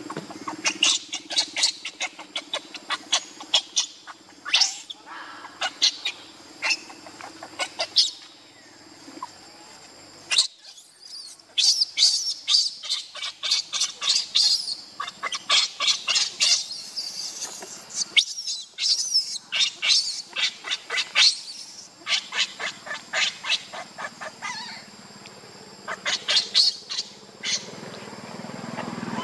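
Infant macaque screaming, in rapid runs of short, shrill, high-pitched squeals broken by a few brief pauses.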